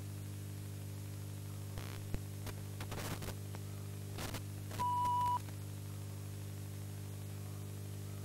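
VHS tape playback static: a steady electrical hum with tape hiss and scattered clicks and crackles. A short high beep sounds about five seconds in.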